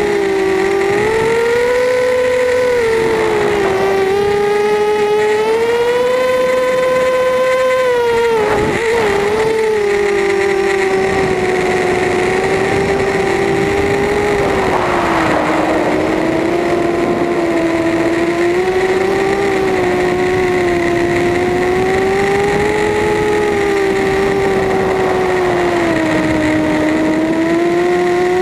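FPV quadcopter's electric motors and propellers whining, heard from the camera on board, the pitch rising and falling with the throttle. The pitch wobbles and dips sharply about eight seconds in.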